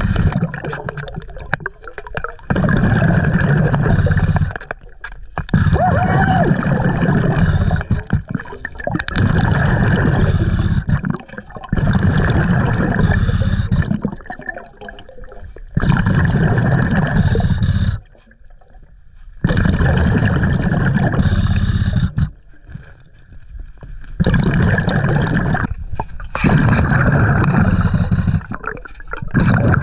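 Underwater breathing through a scuba regulator: bursts of exhaled bubbles gurgling for two or three seconds each, about eight times, with short quieter pauses for the in-breaths.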